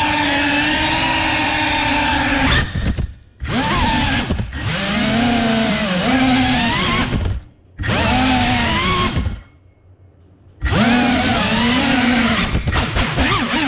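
Motors and propellers of an FPV freestyle quadcopter whining, the pitch rising and falling with the throttle. The sound drops out suddenly three times as the throttle is cut, the last time for about a second.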